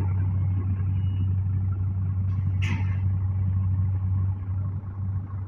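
Heavy diesel engine running steadily, with a short hiss about two and a half seconds in; it quietens a little near the end.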